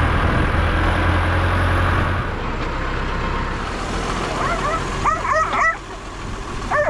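Tractor engine running under load while pulling a mole plough, its low hum easing after about two seconds. A dog barks in a quick run of yaps about two-thirds of the way in.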